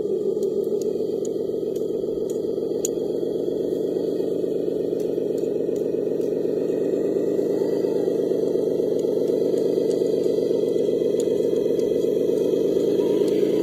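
Radio-controlled heavy truck's motor and gear drive running steadily under load, slowly getting louder and rising a little in pitch near the end, as the truck struggles for grip in deep snow.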